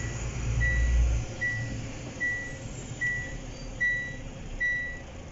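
Iveco Hi-Way truck's in-cab warning beeper sounding a short high beep a little more than once a second, over the low running of the truck's engine, which is louder for the first second. The beeping is the seatbelt reminder.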